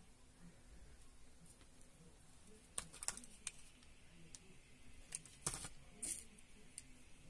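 Faint clicks and knocks of a hot glue gun being handled on a tabletop: a few light clicks about three seconds in, then a louder knock with more clicks a little after five seconds as the gun is set down.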